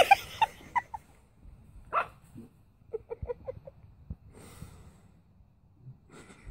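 Small puppy yapping in short high-pitched barks, with a quick run of about six yaps near the middle and a few brief noisy bursts in between.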